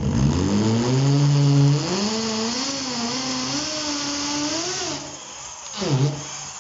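Electric drill boring a pilot hole through a wooden floorboard for a self-tapping screw. The motor spins up with a rising whine, its pitch wavering under load. It winds down about five seconds in, with a brief burst just before the end.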